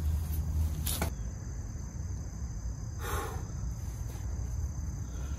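Steady high-pitched drone of insects, such as crickets, over a steady low rumble. A short click comes about a second in, and a brief rustle about three seconds in.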